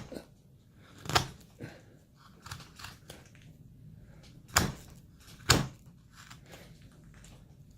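Hand carving chisel cutting into basswood: a few short, crisp cuts, the sharpest about a second in and two close together a little past the middle, with smaller cuts between.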